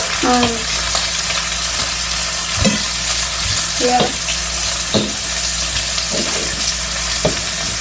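Cheeseburgers and a pork chop sizzling steadily in a hot skillet, with short scrapes and knocks of a whisk and a fork against the pan about once a second.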